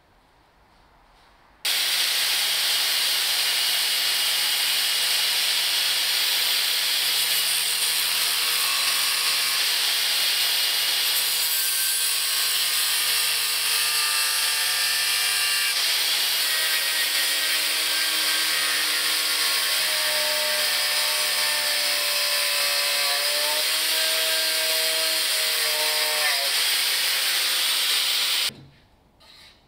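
Angle grinder with a thin cut-off disc cutting through a flat metal bar held in a vise: a loud, steady, high-pitched grinding hiss of the disc biting into the metal. It starts suddenly about two seconds in and stops abruptly near the end.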